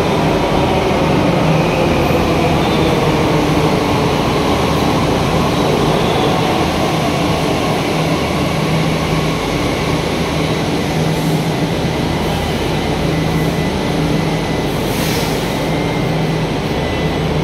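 Delhi Metro train braking into a station. Its electric traction motors whine and fall in pitch as it slows, leaving a steady low hum as it comes to rest. A short hiss comes near the end.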